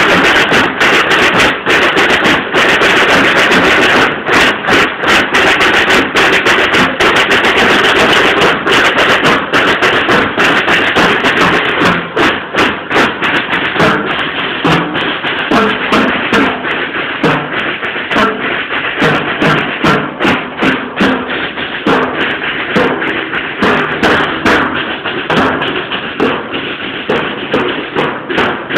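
Marching drums beating hard and close, a dense run of sharp strikes that becomes more spaced about twelve seconds in.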